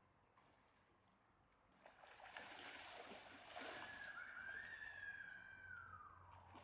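A vehicle passing: a faint rushing noise swells about two seconds in, with a steady high whine that drops in pitch near the end.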